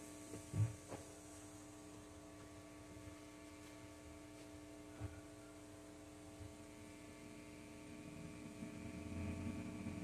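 Steady electrical hum and buzz from a guitar amp rig with a Stratocaster plugged in. A few soft handling thumps break in, the loudest about half a second in, and there is low rumbling near the end as the guitar is lifted.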